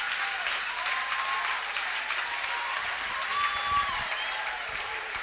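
Live audience applauding, a dense patter of clapping, with scattered voices calling out from the crowd.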